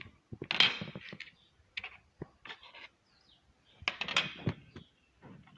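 Handling noise: a few sharp clicks and two short scraping rustles, one about half a second in and one about four seconds in.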